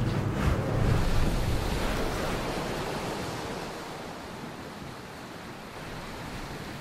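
Surf washing on a beach, a wash of noise with a low rumble that ebbs away and swells again near the end.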